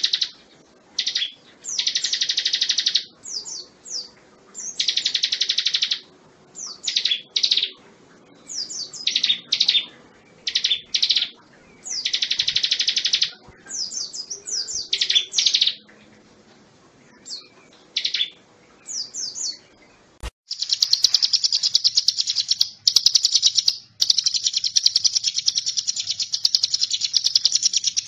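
Hill prinia (ciblek gunung) singing: short, buzzy, trilled phrases with pauses between them, then, after a click about two-thirds of the way through, an unbroken fast chattering trill.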